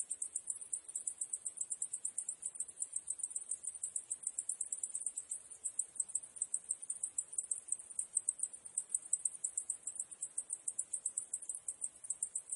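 Cicadas chirring: a steady, high-pitched chorus that pulses rapidly and evenly.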